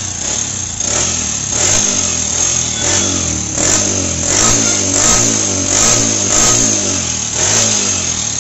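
Kawasaki 4S Champion motorcycle's single-cylinder four-stroke engine running with repeated throttle blips, rising and falling about every two-thirds of a second, then shutting off near the end. It makes a rattling 'kar kar kar' noise that the mechanic puts down, about 90% sure, to a seized piston and gudgeon pin.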